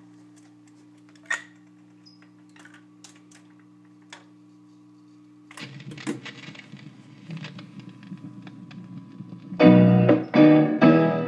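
1953 RCA 3-HES-5 45 rpm record changer cycling: a steady hum with scattered mechanical clicks, one sharper click about a second in. About halfway through, the stylus comes down and record surface crackle starts. Near the end, loud music from the record begins.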